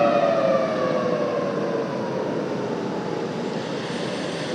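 Federal Signal Thunderbolt civil defense siren winding down at the end of its attack signal. Its chord of several tones slides steadily lower in pitch and fades over a steady rushing noise.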